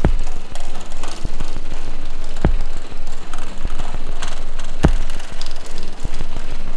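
Noisy, dense music with a deep thump about every two and a half seconds.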